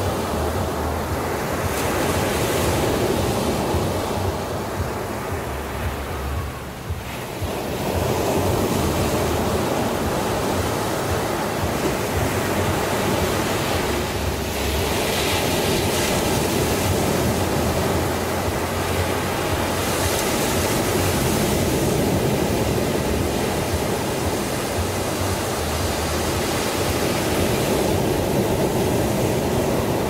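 Small sea waves breaking on a sandy beach and foam washing up the sand, a continuous rush of surf. It dips briefly about seven seconds in, then swells again with each new wave.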